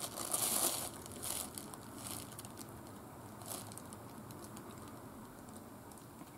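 Thin plastic bag crinkling as a cat plays in it: dense rustling for about the first second, then a few short separate crinkles, fading to faint rustles.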